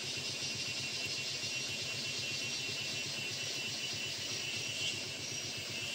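A vehicle engine idling steadily, with a chorus of forest insects buzzing high above it.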